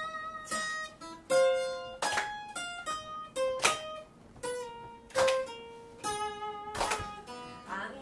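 Acoustic guitar played solo: chords struck one after another, each followed by single plucked notes that ring and fade.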